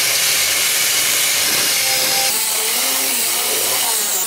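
High-pressure washer spraying water onto a greasy brake pedal assembly: a loud, steady hiss of the water jet, its tone shifting slightly about halfway through.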